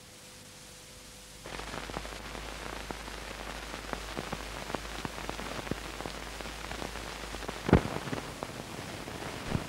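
Hiss and crackle of an old film soundtrack running over a countdown leader, starting suddenly about a second and a half in, with scattered clicks and one loud pop near the end.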